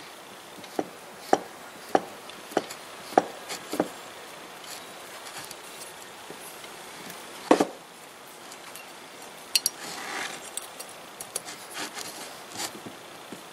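Hand work on disassembled metal lathe parts: a run of about seven light knocks roughly every half second, then a single louder knock, followed by scattered clinks and a short scrape.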